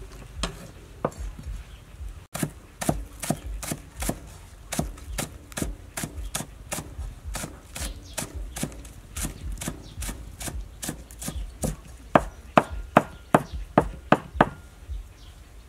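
Cleaver chopping green onions on a round wooden chopping block: a steady run of sharp knocks, about three a second, with the hardest strikes near the end.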